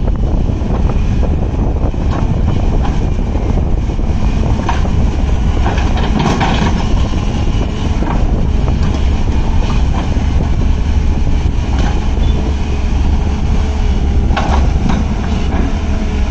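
Hyundai 210 excavator's diesel engine running steadily as it works, with a few short clanks about five and six seconds in and again near the end.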